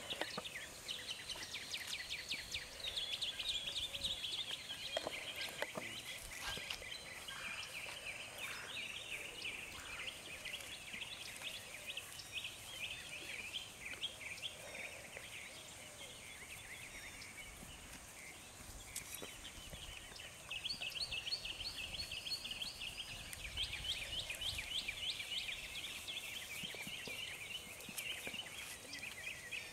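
Birds calling in the background, in runs of rapid chattering notes that come and go.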